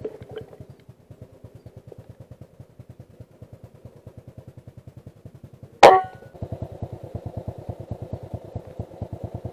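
A single sharp rifle shot a little under six seconds in, with a brief ringing after it. Under it runs a steady, fast, low pulsing of about nine beats a second.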